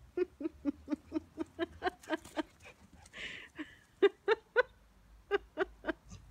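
Dog barking in quick runs of short, high yaps, about five a second, with a pause about halfway through.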